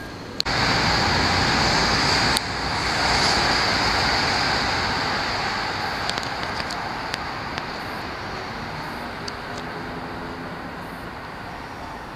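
A train running past: a loud rushing noise that starts abruptly about half a second in, dips briefly about two seconds in, then slowly fades away.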